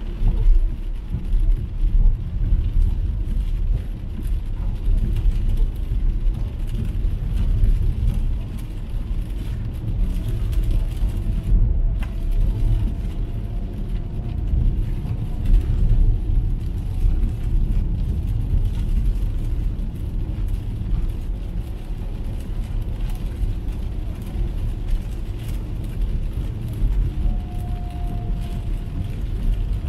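Road and tyre noise of an MG ZS EV electric car driving on a wet road, heard from inside the cabin: a steady low rumble with a fainter hiss, no engine sound. A faint thin whine comes in partway through.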